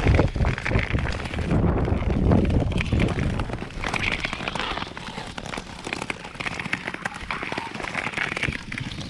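Long-distance skate blades scraping and gliding on natural lake ice, with wind rumbling on the microphone that eases after about three seconds.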